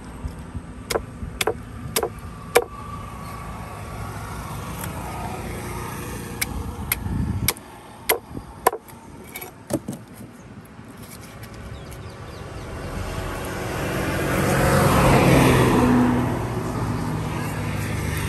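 Sharp knocks of a heavy knife chopping through a rohu's head onto a wooden chopping block, about nine over the first ten seconds. Under them a low engine rumble runs and stops abruptly about halfway through. Then a motor vehicle passes close by, rising to its loudest about fifteen seconds in and fading.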